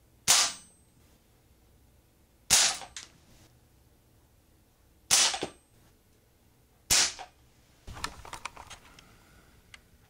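Four shots from a Crosman American Classic pump-up pellet pistol, sharp cracks about two seconds apart, as pellets strike a plastic security keypad. A run of quieter clicks and rattles follows near the end.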